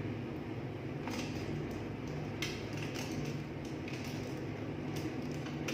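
Eating sounds from a tilapia mukbang: scattered small clicks and crackles of chewing and picking at the fish, over a steady low hum.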